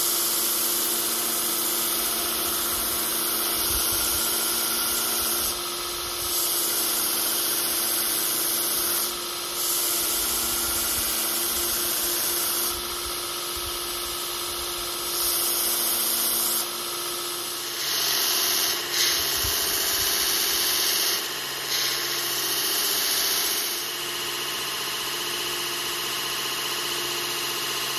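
Belt grinder motor running steadily with a hum, as the handle block is pressed against the abrasive belt in repeated passes of a few seconds each. Each pass adds a louder grinding hiss.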